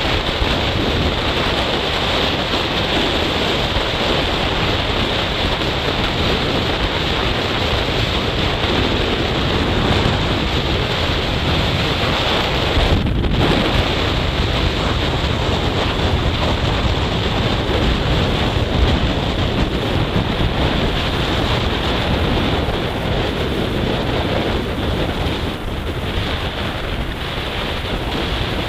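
Steady wind rushing over the microphone of a motorcycle ridden at about 75 km/h on a highway. A brief lull in the hiss comes about 13 seconds in.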